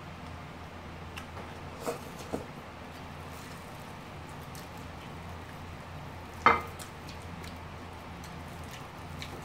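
Quiet eating sounds: soft squishy chewing and a few light clicks of chopsticks on ceramic plates, with one sharper click about six and a half seconds in, over a steady low hum.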